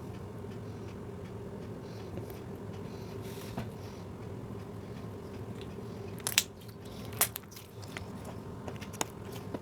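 Homemade soap metallic slime being squished and handled, with faint crackling and a few sharp pops about six seconds in, a second later, and near the end, over a steady low hum.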